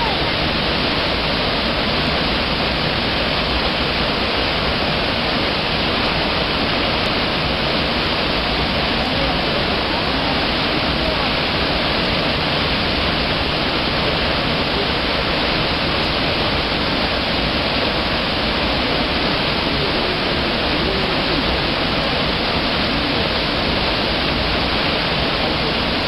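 Ryuzu Falls, a twin-stream mountain cascade, rushing steadily: a loud, unbroken noise of falling and churning water.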